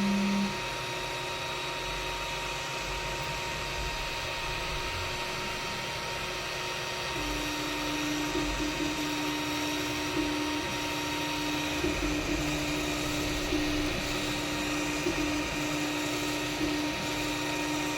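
3D printer running a print: cooling fans hum steadily while the stepper motors give a brief tone at the start, then from about seven seconds a steady whine broken by short jumps in pitch as the print head changes moves.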